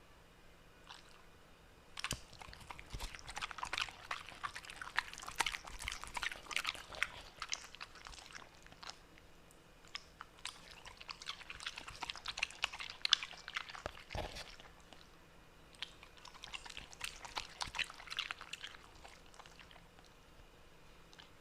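A pet chewing and crunching fresh spinach leaves, in three bouts of fast, crisp crunching separated by short pauses.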